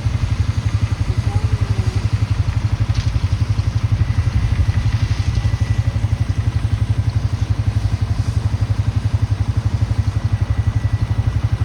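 Four-wheeler (ATV) engine idling close by with a fast, even pulsing beat.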